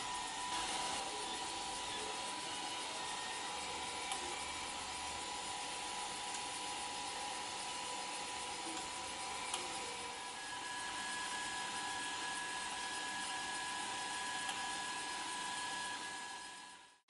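Filament 3D printer running while it lays down the first layer: a steady whirr with a constant whine, a second, higher whine joining about ten seconds in. The sound fades out near the end.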